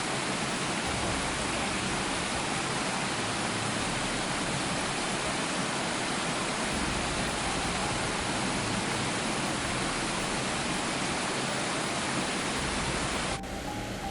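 Steady, dense rush of fast-flowing floodwater, with no pitch or rhythm; it cuts off abruptly near the end.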